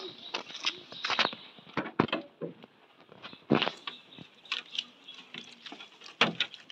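Rain pattering: irregular, sharp taps of drops landing close to the microphone, over a faint hiss of falling rain.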